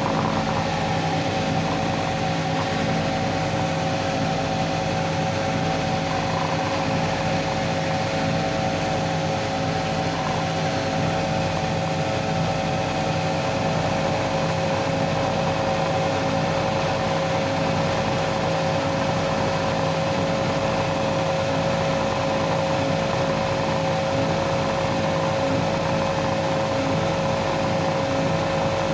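Homemade belt sander running steadily, its electric motor driving the rollers one-to-one at 2800 rpm, with a steady hum over even noise from the moving belt.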